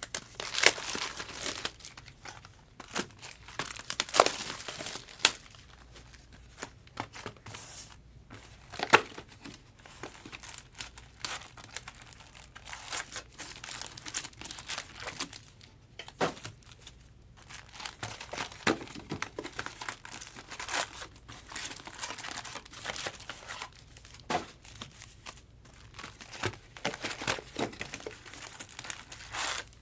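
Trading-card box and pack wrappers being torn open and crinkled by hand. The rustling is irregular throughout, with a few sharper, louder tears about a second in, around four seconds and around nine seconds.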